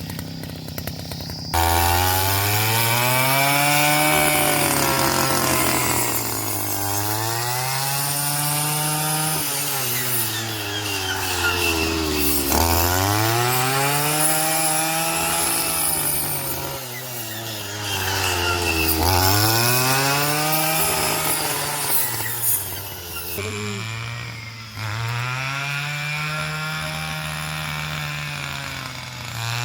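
Motorised brush cutter's small engine revving up and dropping back every few seconds as it sweeps through grass.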